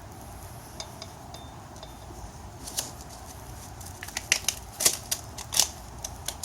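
Scattered sharp clicks and scrapes of a tire iron and pieces of pop-bottle plastic being worked in between the tire bead and the wheel rim. The clicks come thicker in the second half.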